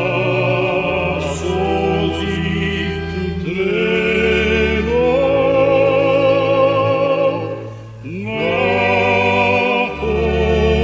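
Slow song sung by several voices in long held notes with vibrato over a low sustained drone, with a short dip near 8 s before the next phrase begins.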